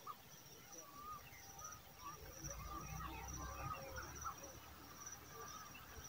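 Faint outdoor birdsong ambience: scattered short bird chirps over a steady, pulsing insect trill. A low rumble comes in for about a second and a half midway.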